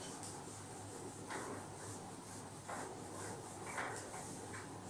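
A whiteboard being wiped with an eraser: several short, faint rubbing strokes a second or so apart.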